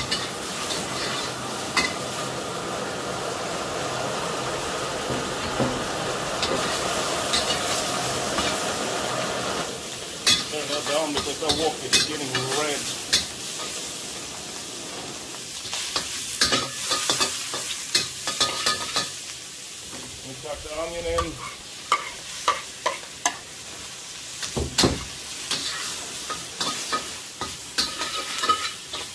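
Pork sizzling as it is stir-fried in a very hot wok, with a spatula scraping and clacking against the steel wok many times. The sizzle is steadiest and loudest in the first ten seconds; after that the clacks of the stirring stand out more.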